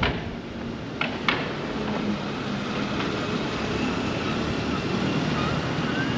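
Street ambience with a motor vehicle running past; two sharp knocks about a second in.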